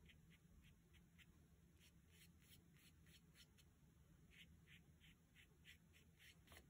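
Near silence, with a faint run of small scratchy strokes, about three a second: a thin paintbrush dabbing and brushing paint onto paper.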